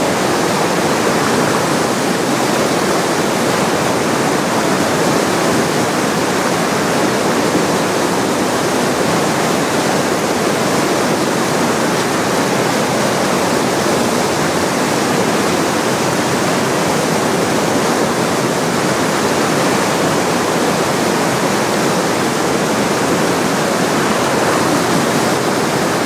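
Whitewater rapid on the Colorado River: big waves of muddy water churning and crashing, a loud, steady rush that does not let up.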